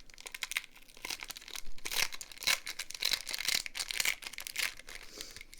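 Crinkling and rustling of trading-card pack packaging and cards being handled, a dense run of crackles busiest through the middle.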